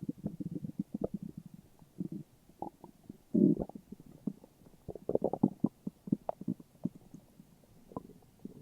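Human stomach growling and gurgling: rapid irregular little pops and bubbling, with a longer gurgle about a third of the way in and a dense run of pops near the middle, then a brief lull near the end.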